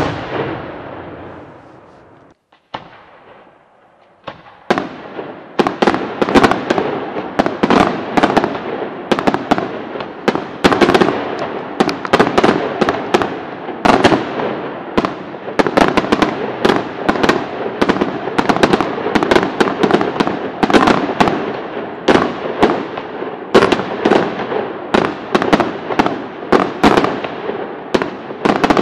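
Aerial fireworks display: one loud bang that dies away, a short lull with a single crack, then from about five seconds in a rapid, unbroken barrage of firework bangs, several a second.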